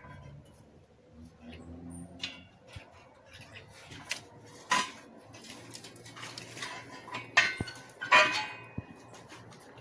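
Scattered light knocks and clinks, the loudest a pair of sharp clatters about seven and eight seconds in.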